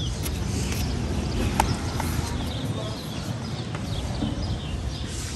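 Outdoor poolside ambience: a steady low rumble with scattered short high chirps and clicks, one sharper click about a second and a half in.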